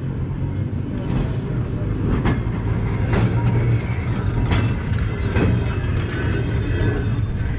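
A streetcar's steel wheels rolling slowly on rails while the car is towed, unpowered, into the barn. Sharp knocks and clanks come about once a second, irregularly, over a steady low hum.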